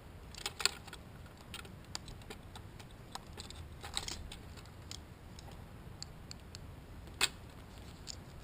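Scattered light clicks and taps at irregular intervals, with two sharper clicks about half a second in and near the end.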